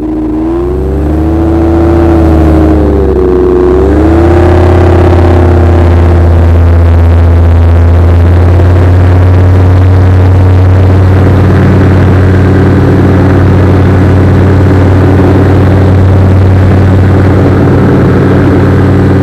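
Motor of a radio-controlled model aircraft, recorded close up, rising and falling in pitch with the throttle over the first few seconds and then running steadily at high power, over a heavy low rumble of wind on the microphone.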